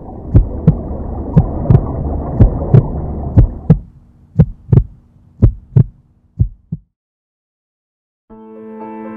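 Heartbeat sound effect: paired lub-dub thumps about once a second, over a muffled rushing noise that stops about four seconds in. The beats grow fainter and stop about seven seconds in, and after a short silence soft piano music begins near the end.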